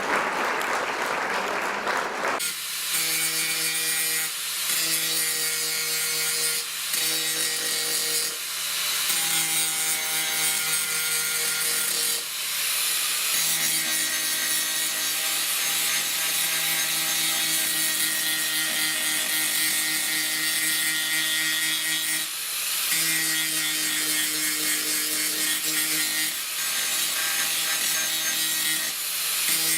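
Power sander working a car body panel: a steady hum with hiss over it that dips and resumes every few seconds as the tool is lifted and pressed back. It starts after about two seconds of rushing hiss.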